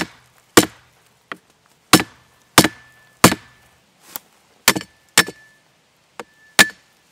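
The sharpened side edge of a cheap steel survival folding shovel hacking repeatedly at a thin branch: about ten sharp strikes, irregularly spaced, some weaker than others, several leaving a faint metallic ring. The blade fails to chop through, only scraping off a little bark.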